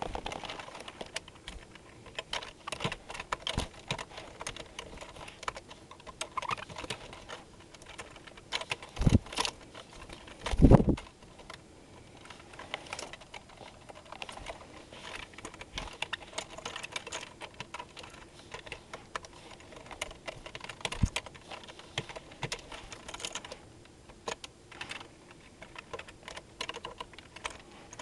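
Computer keyboard keys clicking irregularly throughout, with two louder thumps about nine and eleven seconds in.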